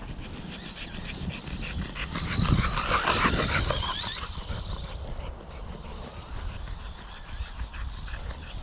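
A dog vocalising, loudest from about two to four seconds in, over a steady low rumble.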